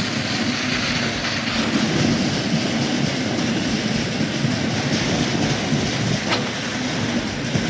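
Concrete pump truck running steadily while pumping concrete, a continuous rumbling mechanical noise with a faint click about six seconds in.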